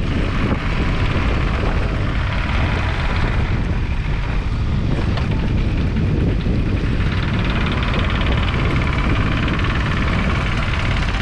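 Kubota U27-4 mini excavator's three-cylinder diesel engine running steadily while the machine travels on its tracks, with track and running-gear noise mixed in.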